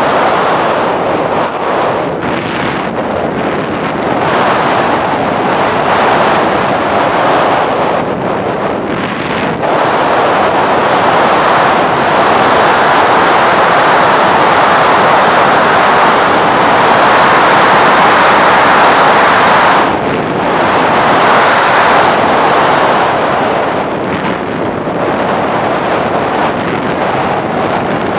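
Loud rush of airflow over the microphone of a camera riding on a flying RC plane, a steady noise that swells and eases and dips briefly about twenty seconds in.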